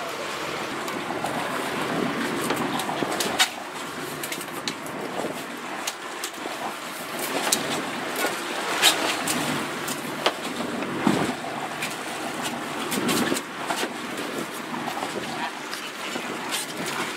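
Wind and sea hiss on an open fishing boat, with scattered sharp clicks and knocks.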